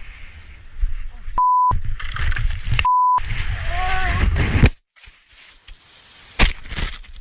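Two short, steady, high censor bleeps, a second and a half apart, set into loud rushing noise and a person's voice. The noise cuts off suddenly near the middle, leaving quieter rustling with a couple of sharp knocks.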